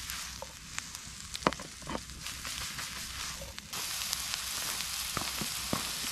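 Onions and mushrooms sizzling in a frying pan over a wood campfire, with a few sharp clicks and knocks, the loudest about one and a half seconds in. The sizzle turns louder and steadier a little under four seconds in, with the pan sitting over the flames.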